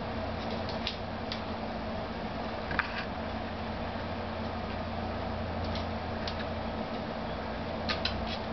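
Hens pecking feed from a wooden treadle feeder: scattered sharp taps of beaks in the wooden tray, the loudest about three seconds in and two close together near the end, over a steady hum.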